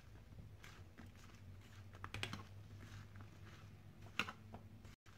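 Bitter gourd rings being tossed and rubbed by hand with spice powder in a stainless steel bowl: faint scattered clicks and rustles, the sharpest about two seconds in and again about four seconds in, over a low steady hum.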